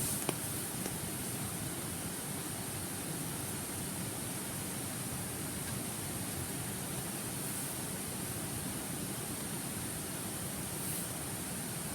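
A river's steady babbling flow: an even rushing hiss of running water, with a faint click or two near the start.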